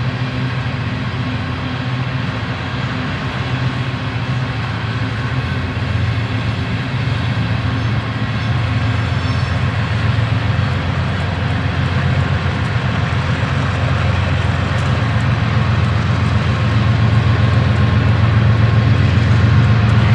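Coal hopper cars of a BNSF freight train rolling past: a steady rumble and rapid clatter of steel wheels on the rails, slowly growing louder toward the end.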